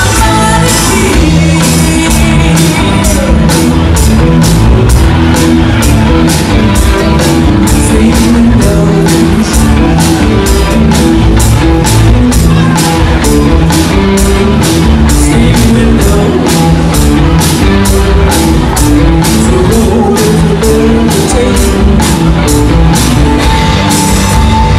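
Live rock band playing loud: electric guitars, bass guitar and drum kit, with a steady beat on the cymbals.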